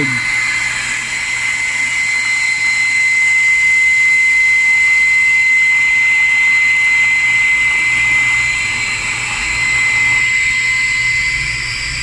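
Electric household water pump feeding a pressure tank, running continuously with a steady high whine because the washer's inlet keeps drawing water, overfilling on a faulty water level sensor. The pump cuts off suddenly at the very end.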